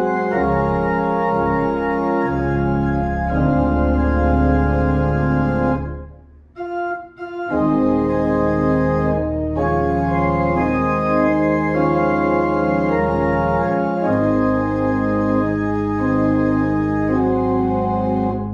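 Pipe organ playing slow, held chords. About six seconds in it thins briefly to a few soft notes, then full chords resume, and a low pedal note comes in about three quarters of the way through.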